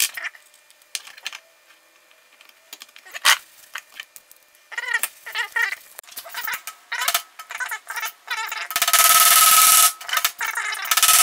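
Small knocks and clicks of tools and parts handled on a workbench, with one sharper knock a few seconds in. About nine seconds in, a power tool starts running loudly with a steady whine, stops briefly, then runs again.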